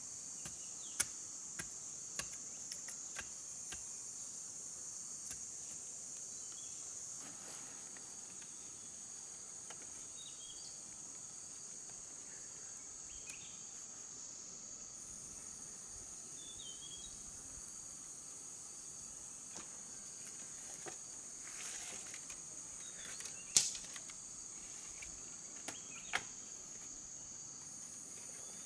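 A steady high-pitched insect chorus from crickets or similar insects, with scattered light clicks and taps, and one sharp knock about 24 seconds in.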